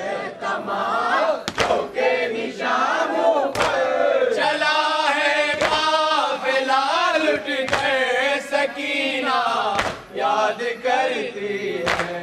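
A group of men chanting a Shia mourning lament together, led by one voice, with sharp chest-beating slaps of matam about every two seconds.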